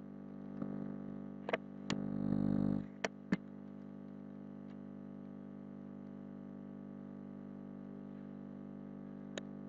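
Several sharp computer keyboard keystrokes, four in the first few seconds and one near the end, over a steady electrical hum with many overtones. A short rushing noise swells and stops about two to three seconds in.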